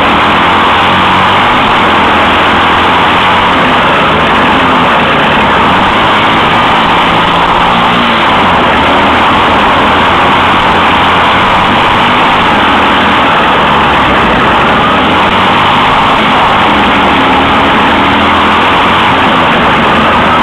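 Onboard sound of a dirt-track cross kart's engine running hard under race throttle, loud and overdriven, with its pitch rising and falling through the corners over a constant rush of wind and rough-track noise.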